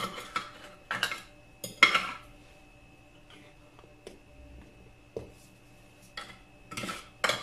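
Metal fork clinking and scraping against a plate and a glass baking dish. Sharp clatters come in the first two seconds and again near the end, with a few small clicks in a quieter stretch between.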